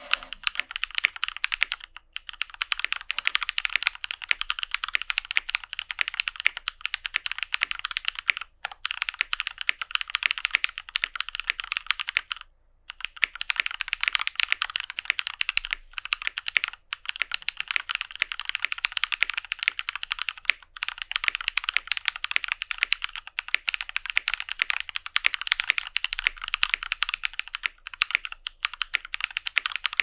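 Continuous fast typing on a Tofu65 mechanical keyboard fitted with Zaku switches lubed with 205g0 and GPL 106, an aluminum plate, lubed screw-in stabilizers and GMK doubleshot ABS keycaps: a dense run of key clacks with a few short breaks, one about 13 seconds in.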